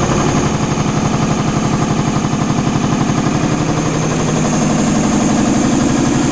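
Belliss & Morcom WH50H3N reciprocating air compressor running with a loud, rapid, steady knock. The knock is a sign of play in the third-stage crosshead pin and the poor lubrication of the guide, crosshead, pin and connecting rod that led to the crosshead breaking.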